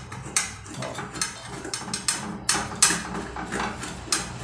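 Irregular metallic clicks and clinks of hand tools as the high-voltage diode is unfastened and pulled out of a microwave oven's metal chassis.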